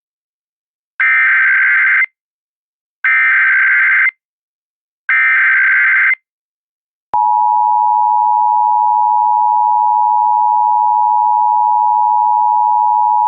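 Emergency Alert System SAME header: three identical one-second bursts of digital data tones, about two seconds apart, encoding a Child Abduction Emergency (AMBER Alert). About seven seconds in, the steady two-tone EAS attention signal starts and holds.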